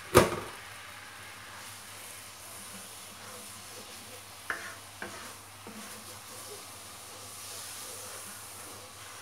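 Curry sauce of coconut milk and curry paste sizzling in a nonstick wok while a wooden spatula stirs it. A sharp knock comes just after the start, and two lighter knocks of the spatula about halfway through.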